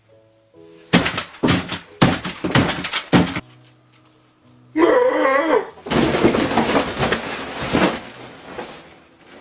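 Soft background music broken by a run of loud thuds and crashing, breaking noises. A wavering, wobbling cry comes about five seconds in, followed by a longer burst of crashing that fades away.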